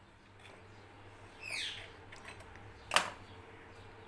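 A bird gives a falling chirp about a second and a half in. Near three seconds a single sharp tap, the loudest sound, cuts across it.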